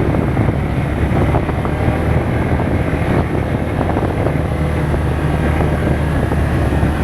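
Steady low rumble of a vehicle on the move, its engine and road noise running evenly with no sudden events.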